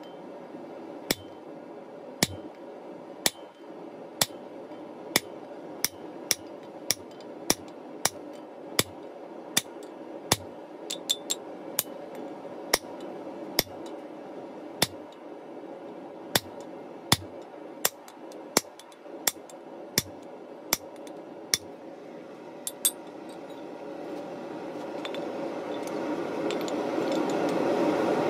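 Hand hammer striking a chisel held on a red-hot mild steel bar on an anvil: sharp metallic clinks about once a second, a little quicker around the middle, over a steady hum. The strikes stop several seconds before the end, while the hum grows louder.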